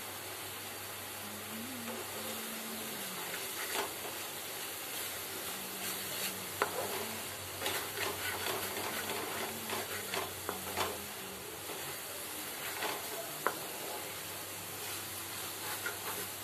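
Vermicelli sizzling in oil in a frying pan while a wooden spatula stirs it, with scattered sharp scrapes and knocks of the spatula against the pan.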